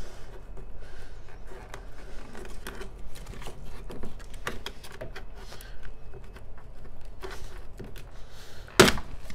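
Plastic trim panel tool prying and scraping at a 2003 VW GTI's door tweeter pocket (sail-panel trim), giving a string of small plastic clicks and scrapes. Close to the end comes one loud, sharp snap as a retaining clip lets go.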